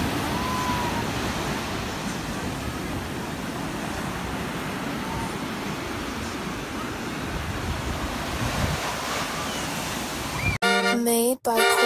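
Steady rush of ocean surf washing on a sand beach. Near the end, music starts suddenly.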